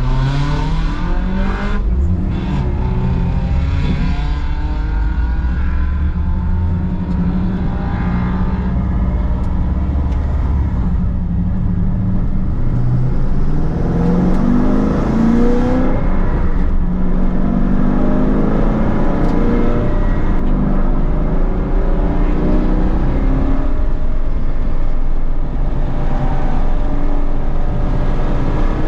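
Holden Commodore VE SS ute's V8 engine running and revving, its pitch climbing several times as it accelerates.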